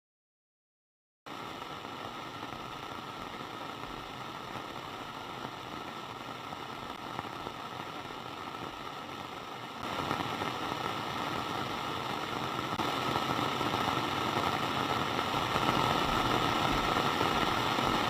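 Steady noisy hum with a faint constant whine, starting about a second in after silence, growing louder in two steps and cutting off suddenly at the end.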